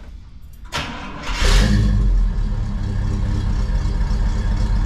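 International Travelall's engine cranked over by the starter and catching after a brief crank about a second in, then settling into a steady idle through a new X-pipe and Flowmaster muffler exhaust.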